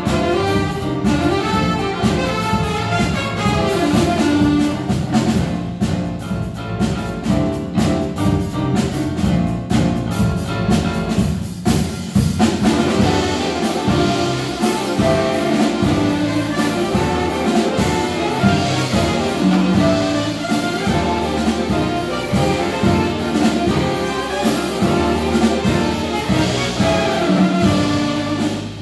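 Big band playing jazz live: saxophone and brass sections over piano and bass.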